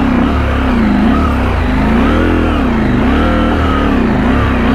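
Adventure motorcycle engine revving up and down over rough, washed-out trail, its pitch rising and falling about once a second as the throttle is worked.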